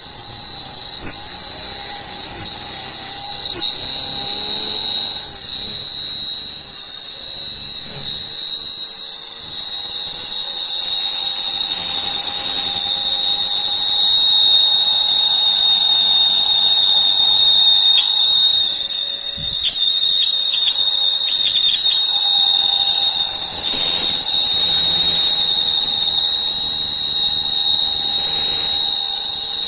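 Nova 1000 W foldable hair dryer running with a very loud, whistle-like noise: a steady high tone with higher overtones over the blower's air rush. This is the noise fault that the dryer is about to be repaired for.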